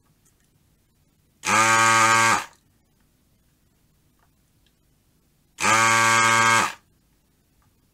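Built-in vacuum pump of an S-993A desoldering gun buzzing in two bursts of about a second each as its trigger is pressed twice; each buzz drops slightly in pitch as it cuts off.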